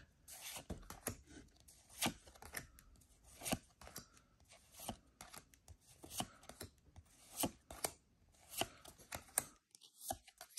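Pokémon trading cards being handled one at a time, each card slid from the front of the stack to the back with a short, faint snap of card against card, about two a second, stopping shortly before the end.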